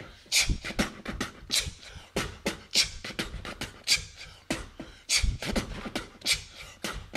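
A man beatboxing with his fist cupped at his mouth: a steady rhythm of short percussive mouth sounds.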